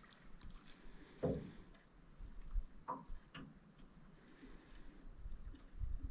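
A few soft knocks and light handling noises on a fishing boat over a faint, steady high-pitched buzz.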